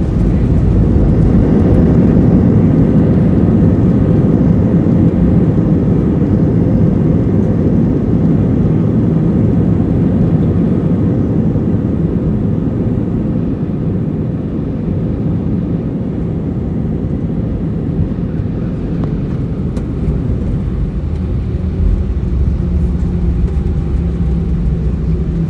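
Cabin noise inside an Airbus A319 on its landing rollout: engine and wheel noise, loud at first and easing off gradually as the jet slows to taxi speed. A steady low hum comes in near the end.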